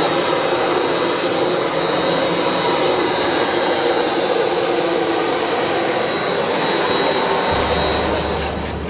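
Jet aircraft engine noise: a loud, steady rush with a thin high-pitched whine over it. Near the end the whine fades and a low hum comes in.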